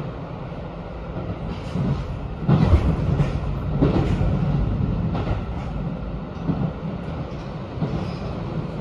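Running noise of a JR Hokkaido 721 series electric train heard from inside the car: a steady low rumble from the wheels with irregular knocks from the track, loudest about three seconds in.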